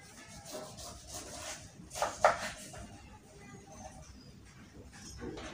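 Knife cutting and scraping through the tough skin of a pineapple as it is peeled by hand, with two sharp cuts about two seconds in.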